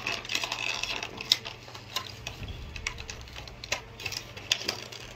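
Plastic toy packaging being handled: irregular clicks, ticks and crinkles as an action figure is worked free of its blister tray and twist ties.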